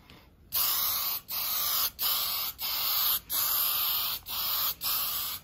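Aerosol spray can of primer surfacer hissing in about seven short sprays, each half a second to a second long with brief breaks between, laying a light coat over a board repair.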